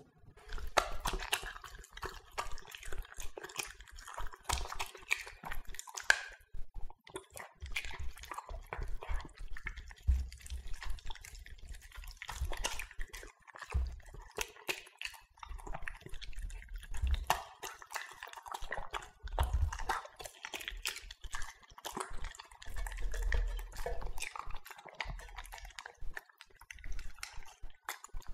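Two Italian greyhounds eating raw minced duck from stainless steel bowls: wet chewing and smacking with many irregular clicks, and occasional low bumps as their muzzles push against the metal bowls while they lick them clean.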